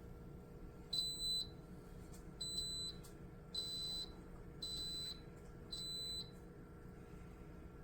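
Electronic beeper of a single-serve coffee maker sounding five high-pitched beeps, each about half a second long and roughly a second apart, over a steady low hum.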